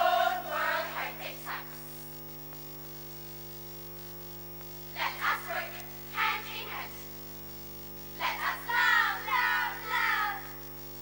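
A girls' choral speaking group voicing lines in unison, in three phrases separated by pauses, the last one longer and more sing-song. A steady electrical hum runs underneath.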